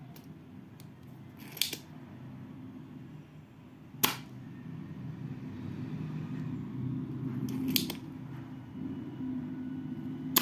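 Spring-loaded desoldering pump (solder sucker) snapping: four sharp clacks of its plunger, a few seconds apart, as it sucks molten solder off a joint on a circuit board.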